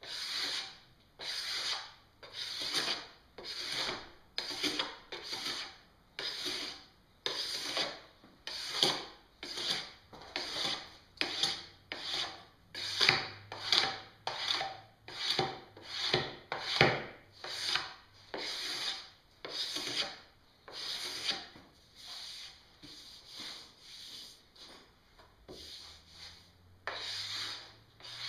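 Steel snowboard scraper rasping over a snowboard's polyethylene base in repeated strokes, about two a second, shaving cured P-Tex drips flush with the base. The strokes grow a little quieter near the end.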